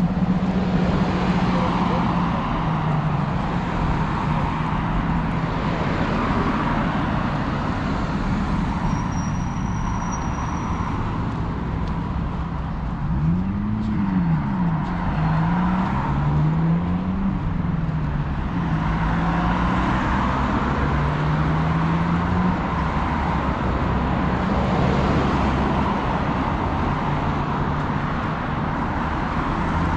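Steady city street traffic: cars driving past with a continuous rush of engines and tyres.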